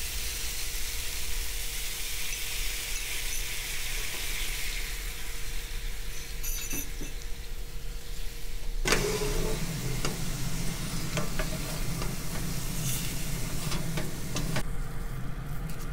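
Soy sauce and mirin glaze sizzling in a hot oiled frying pan around pan-fried daikon mochi. About halfway through, the pan is shaken over the burner, with the cakes sliding and clicking against the pan in the bubbling sauce, and the high sizzle drops away near the end.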